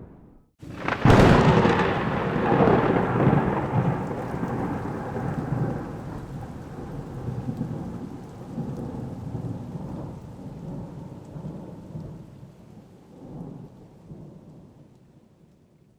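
Lightning strike: a sharp crack about a second in, then a long rolling rumble of thunder that slowly dies away.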